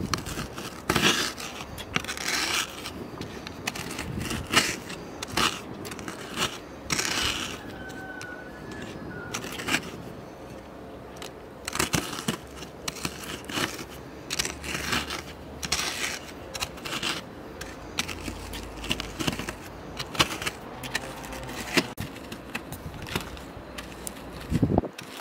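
Dry biscuits being crushed under a wooden rolling pin on a cutting board: irregular crunching and crackling as they break into crumbs, with the pin scraping and rolling over the board.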